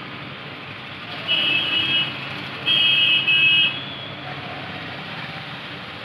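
Digital multimeter's continuity buzzer beeping in short bursts as its probes touch points on a phone circuit board, starting a little over a second in and stopping about two and a half seconds later. The beep signals a low-resistance path: the board still shows a short.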